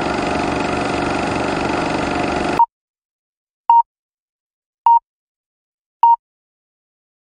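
Film countdown leader sound effect: a steady projector-like whirring rattle that cuts off abruptly, followed by four short, identical high beeps about a second apart, one for each number counting down.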